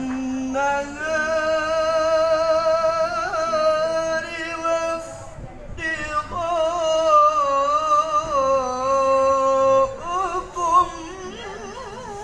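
A man's voice reciting the Quran in melodic tilawah style: two long held phrases with ornamented wavering turns, the second ending lower, then a short ornamented run near the end.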